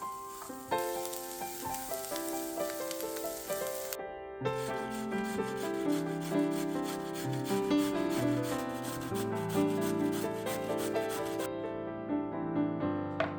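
Instrumental background music over repeated rasping, scraping strokes of food preparation in the kitchen. The strokes come in a quick, even run through most of the middle and stop near the end.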